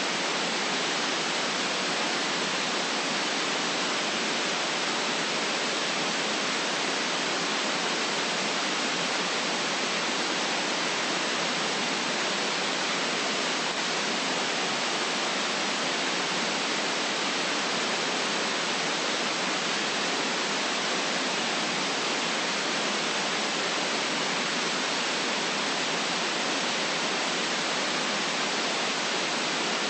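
Steady white noise: an even, unchanging hiss, brightest in the upper range and lacking deep bass.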